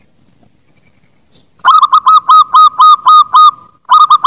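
Zebra dove (perkutut) song: a loud, quick run of about eight short, clipped cooing notes at roughly four a second, starting about one and a half seconds in. After a brief pause a second run begins near the end.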